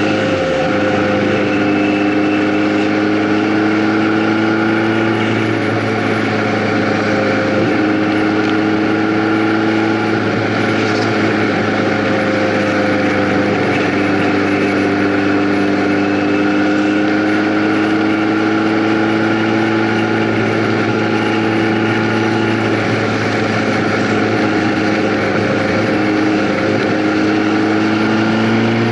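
Vehicle engine running at a steady cruise, its pitch drifting slightly up and down, over constant wind noise.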